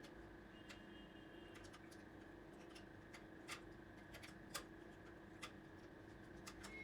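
Faint, scattered light clicks and taps, as of small computer parts being handled, over a steady low hum.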